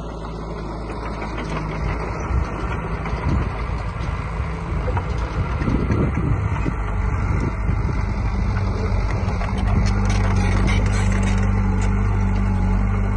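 Diesel engine of heavy construction machinery running steadily, growing louder about halfway through.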